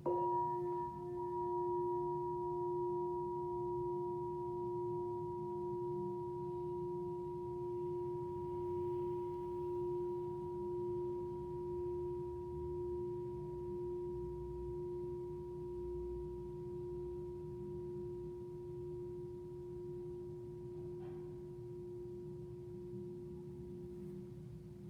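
Tibetan singing bowl struck once and left to ring: one steady low tone with higher overtones, slowly fading, the highest dying away about halfway through.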